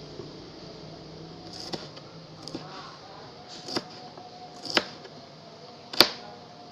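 Kitchen knife slicing shallots on a plastic cutting board: separate knocks of the blade against the board, roughly one a second, the loudest near the end.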